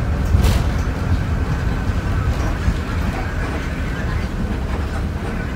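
Airport apron shuttle bus driving, its engine and road noise heard from inside the cabin as a steady low rumble, with a short sharp knock about half a second in.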